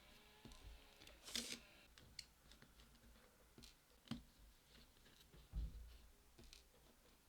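Faint small clicks and light scrapes of a precision screwdriver working the tiny pentalobe screws of a MacBook's bottom case, with a brief scrape about a second in and a soft thump about five and a half seconds in.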